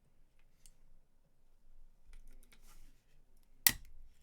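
Brittle plastic laptop battery casing being pried apart: scattered faint clicks and a short scrape, then one loud sharp crack a little over three and a half seconds in as the plastic shatters.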